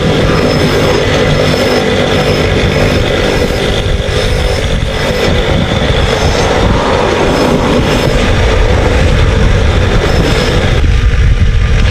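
Electric motor running a drum sanding sleeve, with a sneaker's rubber outsole pressed hard against it and grinding steadily as the sole is roughened flat for gluing on a new rubber layer. The sound changes a little before the end.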